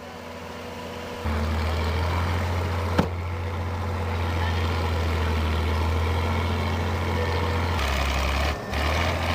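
Heavy crawler tractor's engine running with a steady low drone that gets louder about a second in. A single sharp click sounds about three seconds in.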